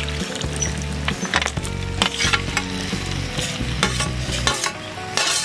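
Boiled mutton pieces and their stock poured into a hot iron kadai of masala, sizzling, while a steel ladle scrapes them off a steel plate with repeated clinks and scrapes.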